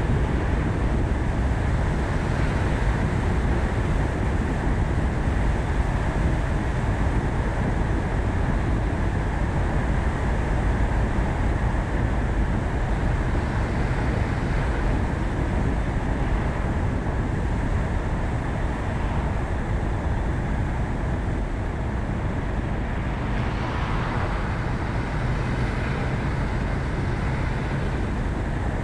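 Ford Focus ST being driven: steady road and engine noise.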